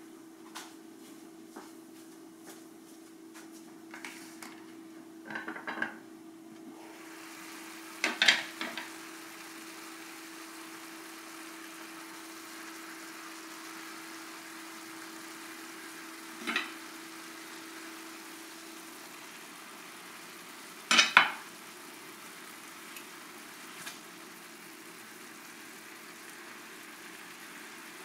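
Glass lid clattering off an enameled cast-iron skillet, then a wooden spatula knocking and scraping in the pan as fried rice and vegetables are stirred, over a light sizzle. A few sharp knocks stand out, the loudest about two-thirds of the way through.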